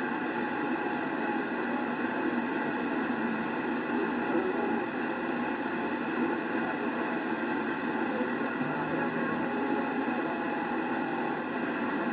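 Steady hiss and static from a Yaesu transceiver's speaker, receiving 27.005 MHz (CB channel 4) with no clear voice coming through. The noise is even and dull, without treble.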